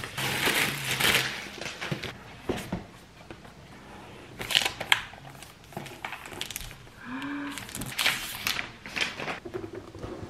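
Cardboard and paper packaging of a new laptop being handled: scraping, rustling and crinkling in several separate bursts as the box is opened and the laptop lifted out.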